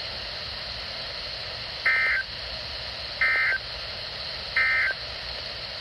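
Three short Emergency Alert System SAME data bursts, warbling digital tones about a second and a half apart, over weather-radio hiss: the end-of-message code that closes the test warning.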